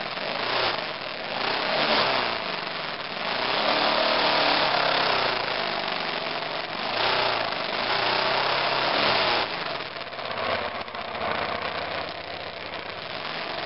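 2002 BMW F 650 GS Dakar's single-cylinder engine running under way, its pitch rising and falling with the throttle, under a rushing noise of wind and trail that swells and fades, heaviest from about four to nine seconds in.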